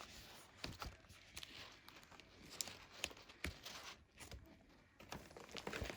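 Faint scattered taps and rustles of a paper planner being handled.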